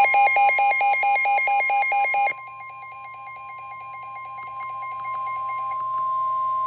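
NOAA Weather Radio warning alarm tone: one steady high tone, with a weather-alert receiver's beeping alarm at about four beeps a second layered over it. The beeps are loud for about two seconds, then drop in level, and they stop about five seconds in, leaving the steady tone on its own. The tone signals a warning-level alert, here a severe thunderstorm warning.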